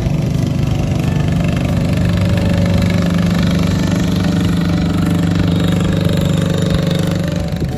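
Motor boat engine running steadily, a low even hum with a clear pitch, cutting off just before the end.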